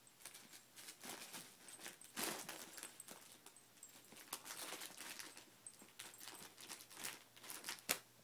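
Miniature Pinscher rooting with her nose in a plush puzzle toy: irregular rustling and crinkling of fabric with quick scuffs, one sharp scrape just before the end.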